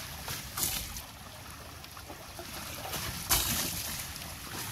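Water trickling and splashing as a mud-covered vehicle is washed down with river water, with a sharp, louder splash a little over three seconds in.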